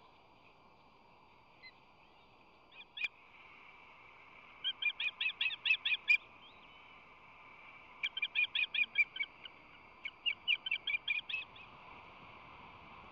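Osprey calling: three runs of rapid, high whistled chirps, about seven notes a second, each run lasting a second or so.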